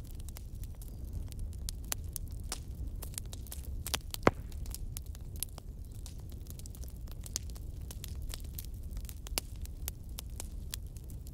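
Irregular crackling clicks over a steady low rumble, with one sharp, much louder click about four seconds in.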